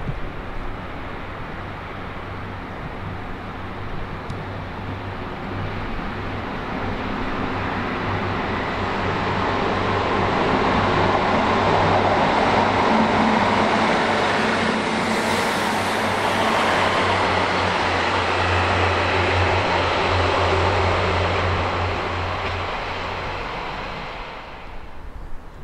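Class 150 Sprinter diesel multiple unit approaching and passing: a steady low diesel engine drone under wheel-on-rail noise that builds, is loudest around the middle, then fades and cuts off near the end.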